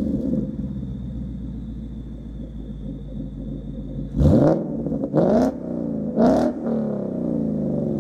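Ford S550 Mustang's 5.0 V8 idling through Borla S-Type mufflers with the resonator deleted, still on its factory manifolds without long-tube headers. About four, five and six seconds in it is blipped three times, each rev climbing quickly and dropping back to idle.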